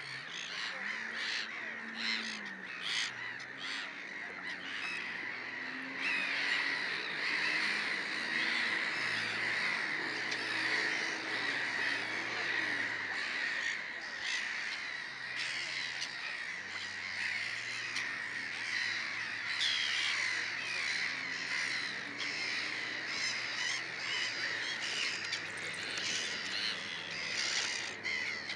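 A flock of gulls calling continuously overhead: a dense chorus of overlapping harsh calls with no break.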